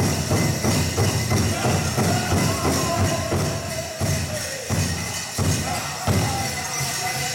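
Powwow drum group singing over a steady beat on a big bass drum, with the bells on the dancers' regalia jingling.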